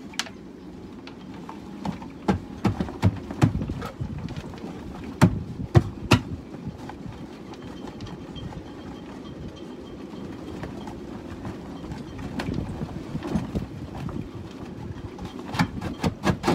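Clusters of sharp knocks and clicks, the loudest about five to six seconds in, as an old instrument housing bedded in silicone is prised and worked loose from a boat's cockpit bulkhead.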